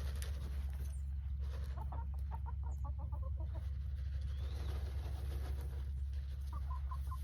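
Chicken hens clucking in quick runs of short clucks, about two seconds in and again near the end, over a steady low rumble.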